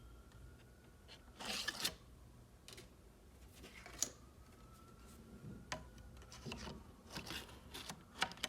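Scattered handling noises: short rustles and clicks, the longest about a second and a half in and a cluster near the end, over a faint, slowly rising high tone.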